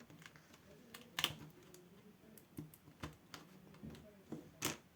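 Small, irregular clicks and scrapes of a plastic laptop screen bezel being pried loose from its adhesive tape. The two sharpest clicks come about a second in and near the end.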